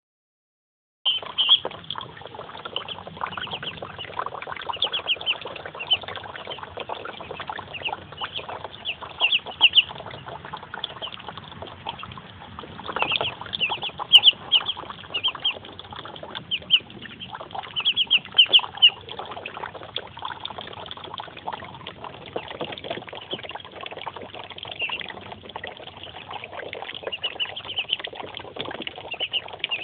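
Muscovy ducklings peeping, many short high calls in quick runs, with small splashes and dabbling as they work their bills in a tub of water. The sound begins about a second in.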